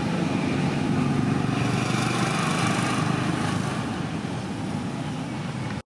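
An engine running, a little louder about a second in and then slowly fading, cut off abruptly just before the end.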